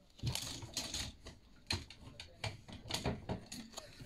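Plastic clothes hangers clicking and knocking together as they are handled, in an irregular run of light clacks, several a second.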